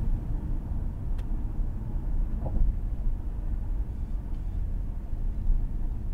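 Steady low road rumble inside a car cruising at about 65 mph on a highway: tyre and engine noise heard through the cabin.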